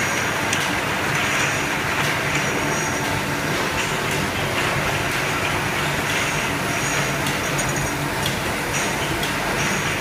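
Automatic glass-bottle washing and drying machine and its bottle conveyor running: a steady mechanical hum and hiss, with light clinks of glass bottles on the conveyor now and then.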